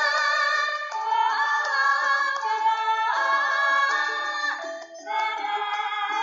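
Background music: a song with a singing voice holding long notes, sliding from one pitch to the next.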